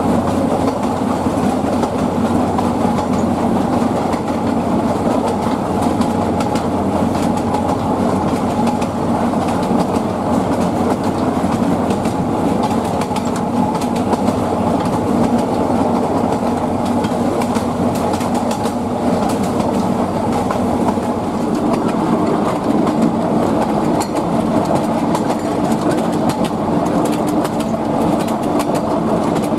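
Narrow-gauge passenger train rolling along the track, heard from aboard: a steady rumble with a faint hum and wheel clicks over the rail joints, which come more often in the second half.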